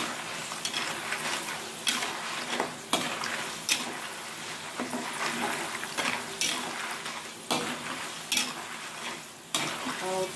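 Metal spatula stirring and turning dried crackers in a wok of frying oil over a medium flame: a steady sizzle with irregular clinks and scrapes of the spatula against the aluminium wok, roughly one a second.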